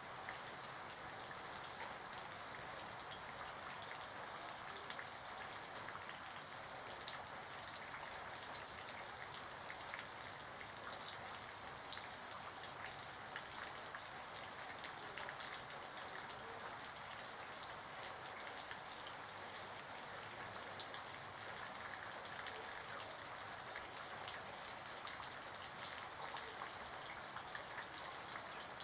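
Steady rain falling: a constant hiss with many small, sharp raindrop ticks scattered through it.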